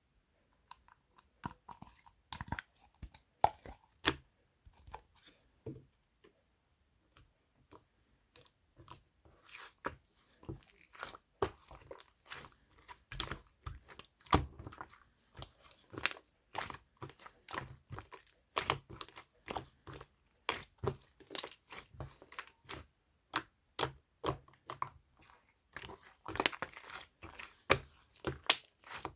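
Toy slime being squeezed, stretched and pressed by hand, giving a stream of irregular sticky clicks, crackles and pops.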